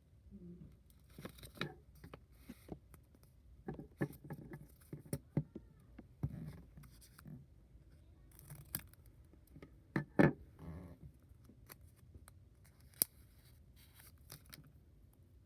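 Hands opening a cardboard box and handling paper or packaging: irregular rustling, scraping and tearing with sharp clicks, the loudest knock about ten seconds in.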